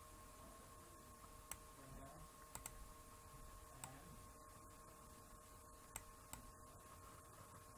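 Faint computer mouse clicks, about six scattered single clicks, over a quiet steady hum: near silence otherwise.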